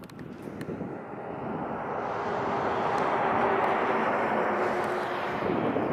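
A motor vehicle passing close by: a rushing noise that swells over the first three seconds and stays loud, with a steady hum through the middle.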